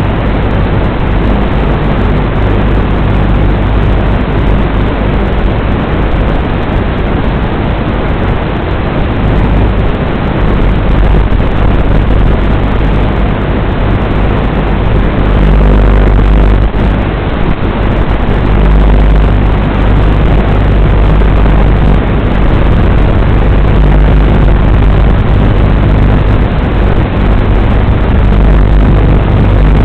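WLToys 12418 RC car driving: its electric motor and gears running with a steady rumble from the tyres and chassis, loud and continuous, a little louder from about halfway.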